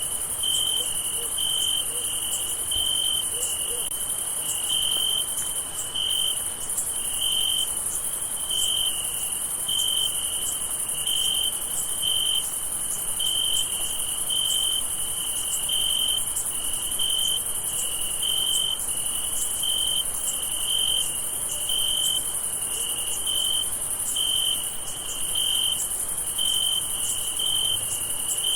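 Crickets chirping: a steady high-pitched insect chorus, with one nearer cricket's chirps repeating a little more than once a second.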